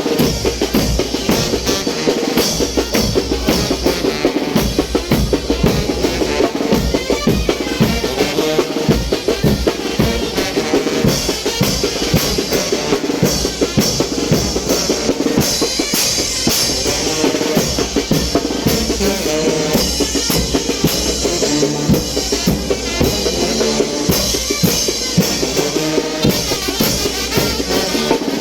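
Mexican brass band (banda de viento) playing chinelo dance music, with bass drum and snare driving a steady beat under the wind instruments.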